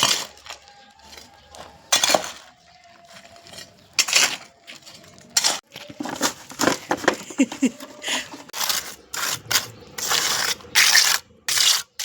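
A metal spoon clinking, knocking and scraping against metal cookware while masala is stirred and mixed, in irregular strikes that come faster in the second half.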